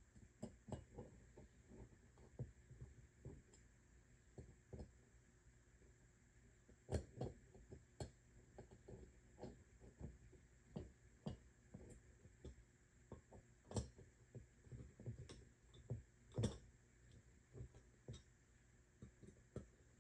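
Irregular light clicks and taps of small metal bike parts being handled, a chainring and crank arm being fitted together, with a few sharper knocks.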